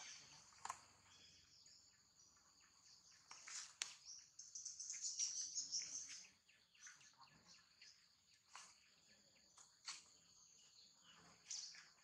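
Faint, steady high-pitched insect chorus that swells about four seconds in and again near the end, with a few short sharp chirps.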